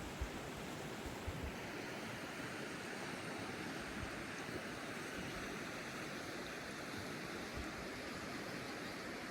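Steady rush of a flowing mountain stream, with a few low bumps in the first second or so.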